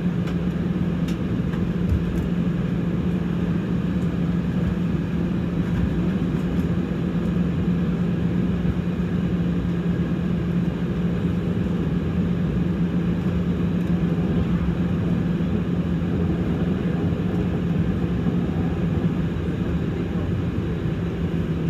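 Airbus A320 cabin noise while taxiing onto the runway: the jet engines running at low taxi power with a steady low hum, heard from inside the cabin.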